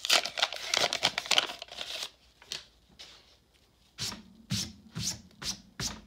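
Foil wrapper of a 1991 Upper Deck baseball card pack crinkling and tearing open for about two seconds. After a short lull there is a run of about five short, soft knocks and rubs as the pulled cards are handled.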